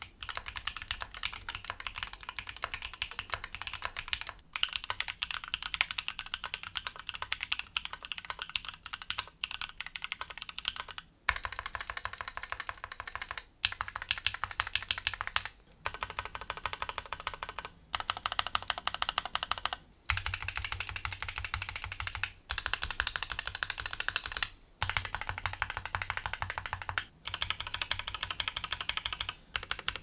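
Fast typing on a Keychron Q8 Alice-layout aluminium mechanical keyboard, in runs broken by short pauses, as a sound test of mods. It starts on stock Gateron G Pro Red switches with stock stabilizers and no foam. Partway through it is on Kinetic Labs Huskies switches with C3 stabilizers and neoprene case foam, and the keystrokes carry more low end.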